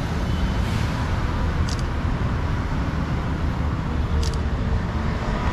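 Steady rumble and hiss of road traffic, with two short sharp clicks a couple of seconds apart.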